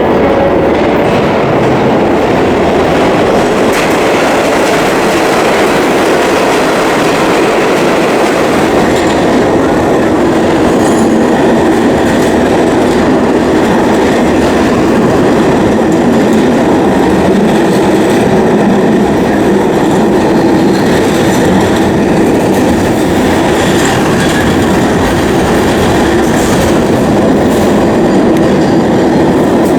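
Subway train running loud and steady, a continuous rumble and clatter of wheels on track.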